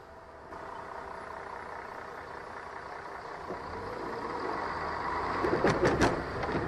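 Dashcam recording of city road traffic: engine and road noise that steps up about half a second in and grows as the cars pull away from a green light. A few short, loud bursts come near the end.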